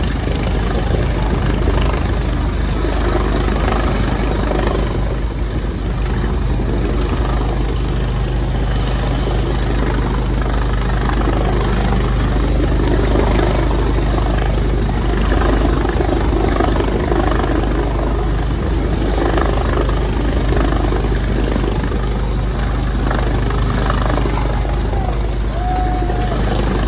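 Helicopter hovering close by during a rescue hoist, its rotor and engine making a loud, steady drone.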